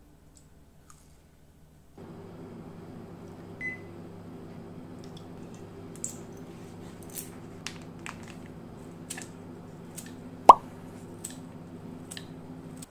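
A steady appliance hum sets in about two seconds in, under small kitchen handling sounds as marinade ingredients are measured into a mixing bowl on a kitchen scale. A spoon and a bottle click against the bowl, with a short beep early on and one sharp, ringing clink of a metal spoon about ten seconds in.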